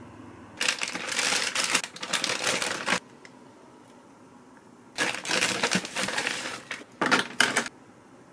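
Plastic food packaging crinkling and rustling as it is handled, in three bursts: a long one early, then two shorter ones near the end.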